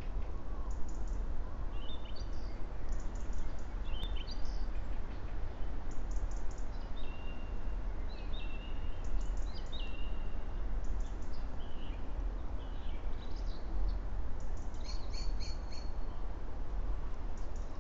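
Songbirds singing in short, repeated phrases of high chirps and trills, over a steady low rumble.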